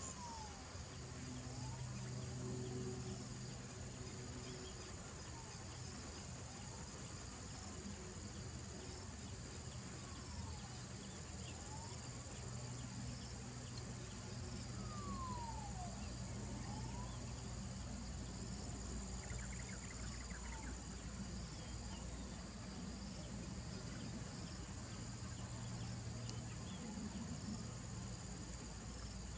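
Steady high-pitched insect chorus, a continuous shrill trill, over a low hum that comes and goes. Faint short whistled notes that slide down or up in pitch come every few seconds.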